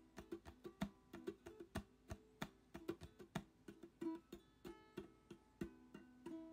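Background music: plucked acoustic guitar picking a steady run of notes.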